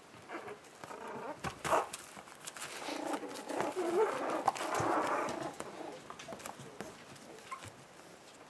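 Month-old puppies whining and yipping as they play-wrestle, the calls loudest about four to five seconds in, with scattered scratches and rustles of paws on the bedding and puppy pads.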